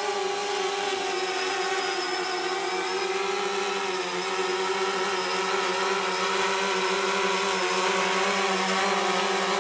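DJI Phantom 3 quadcopter's motors and propellers buzzing steadily as it hovers, a droning hum made of several held tones that wobble slightly in pitch. It gets a little louder about halfway through.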